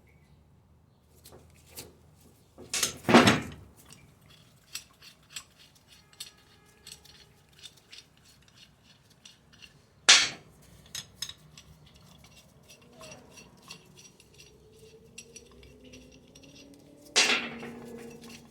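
Metal tools and car parts clinking and knocking during hand work on a wheel hub, with three louder sudden sounds: about three seconds in, midway, and near the end.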